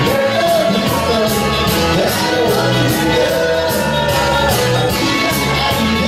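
Live amplified music: a male singer singing into a microphone over an accompaniment with a steady beat.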